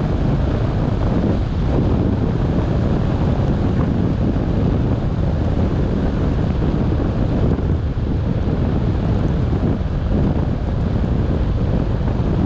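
Steady road and wind noise from a car driving on a wet road, with wind rumbling on the microphone.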